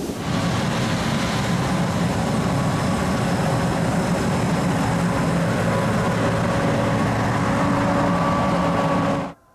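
Green farm harvesting machine running steadily while cutting corn: a loud, even engine drone with several steady tones in it, stopping abruptly near the end.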